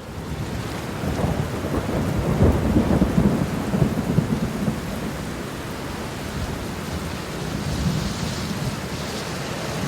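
Steady rain falling with a long roll of thunder rumbling underneath, building over the first few seconds and strongest a few seconds in, then easing back into the rain.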